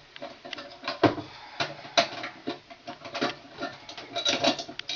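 Irregular clicks, taps and scrapes of hands working a wall switch and bending its stiff copper wires, a few knocks louder than the rest and a short burst of scraping near the end.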